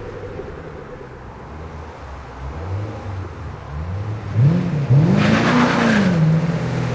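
2010 Chevrolet Camaro with an MBRP prototype exhaust, its engine note low and steady at first, then two quick revs about four and a half seconds in as the car accelerates toward the listener. The exhaust is loudest near the end.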